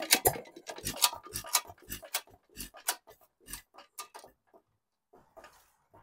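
1-1/2 hp Sandwich Cub hit-and-miss engine turning over on its flywheels. A regular clatter of knocks, about two a second, slows and fades over about five seconds as the engine coasts down. It runs only briefly on starter fluid because it isn't drawing gas, which the owner puts down to a stuck check ball in the gas tank.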